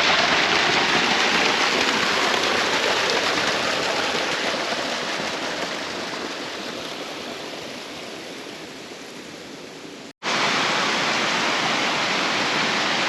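Rushing water of a small creek, steady and full, fading slowly over about ten seconds. It breaks off sharply, and louder, steady rushing water of another small stream takes over.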